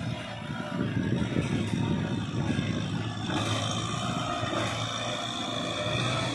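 Farm tractor's diesel engine running steadily under load as it pulls a disc plough through dry soil, with a rough rumble under the engine note. The higher part of the engine sound grows stronger about three seconds in.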